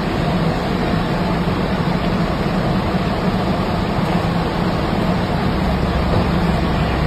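Steady rushing noise with a low hum underneath, unchanging throughout, with no distinct bird calls.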